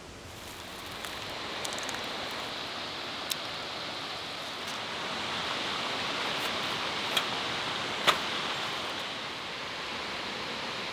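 Steady rushing of a mountain stream, with a few short sharp clicks or knocks over it.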